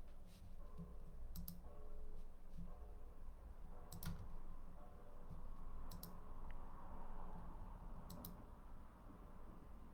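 Computer mouse clicking: four short, sharp clicks about two seconds apart, each a quick pair, over a faint low hum.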